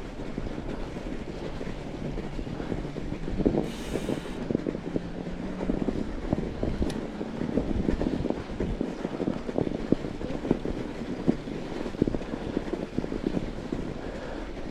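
Fat bike rolling fast over a snowy trail: tyres crunching, with frequent knocks and rattles from the bike over bumps, and wind on the microphone.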